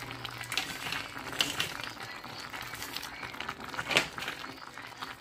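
Light crackling and rustling of chopped raw cabbage leaves piled in a soup pot, with one louder crackle about four seconds in.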